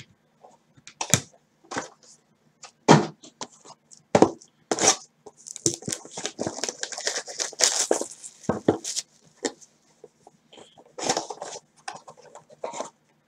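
A cardboard trading-card hobby box being opened by hand: sharp clicks and knocks of the box and its flaps, with a few seconds of tearing and rustling near the middle.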